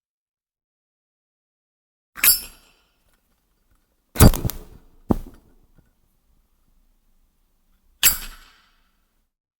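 Vintage Zippo lighter being worked: a ringing metallic clink about two seconds in, a louder cluster of clacks followed by a sharp click around the middle, and another ringing clink near the end, with silence between.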